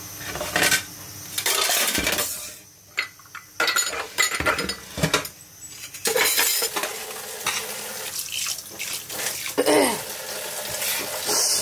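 Dishes, glass bowls and spoons clinking and clattering against each other and the stainless steel sink as they are washed and moved about, with tap water running in the latter part.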